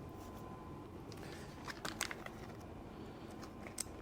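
A few faint, sharp clicks and light metallic taps from a socket wrench on daisy-chained extensions being worked, in a small cluster about two seconds in and once more near the end.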